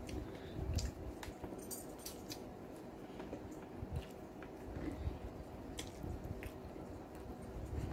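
A person eating vegetable lo mein: wet chewing and mouth sounds, with scattered sharp clicks of chopsticks on the plate.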